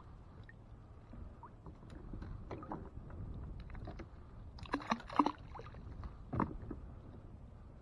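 Wire crab trap being shaken and dunked at a boat's side: water sloshing and splashing, with the wire cage rattling and knocking in a few sharp strokes about five seconds in and once more a little later.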